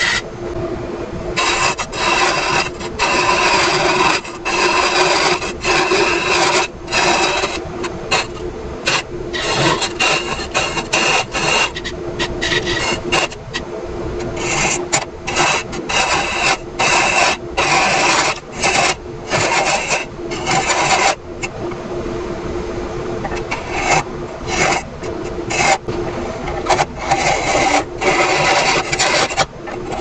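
Bent-shaft elbow hollowing tool cutting inside a spinning ashe juniper vase on a wood lathe: repeated rasping scrapes a second or two long with short breaks between them, over the steady hum of the lathe.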